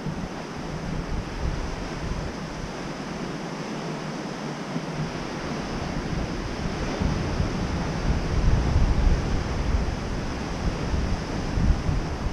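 Surf washing over a rocky beach, with wind buffeting the microphone in a low rumble that grows stronger from about halfway through.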